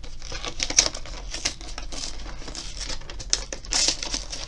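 Plastic wrapping on a cardboard box crinkling and crackling as it is torn open, in a run of quick irregular snaps and rustles, with a louder burst near the end.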